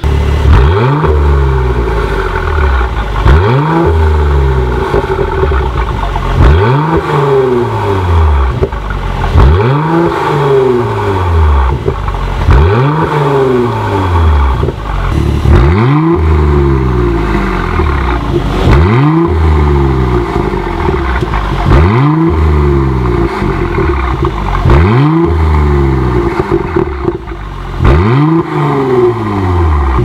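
Mercedes-AMG GLC43 Coupe's twin-turbo V6 revved repeatedly while standing still, through an Armytrix cat-back exhaust with its valves open. About ten sharp blips come roughly three seconds apart, each rising quickly and falling back toward idle.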